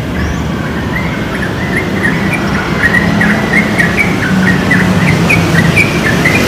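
Sooty-headed bulbul calling over and over, a run of short, quick, bubbly notes, over a steady low rumble.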